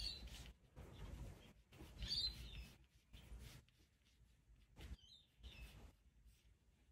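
Faint graphite pencil strokes on paper as a shadow mark is sketched in, with a few short high chirps about two seconds apart.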